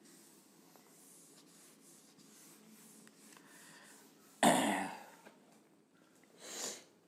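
A man coughs once, sudden and loud, about four and a half seconds in, and makes a shorter, breathy sound near the end. Before the cough, a duster rubs faintly across a whiteboard.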